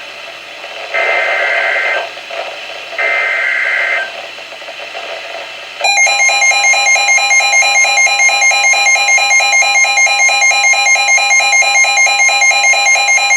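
NOAA Weather Radio emergency alert: two-tone digital bursts of a SAME alert header, each about a second long with a short gap between, then about six seconds in the steady 1050 Hz warning alarm tone starts with the weather radio receiver's loud pulsing alarm beeping over it, signalling an incoming severe thunderstorm warning.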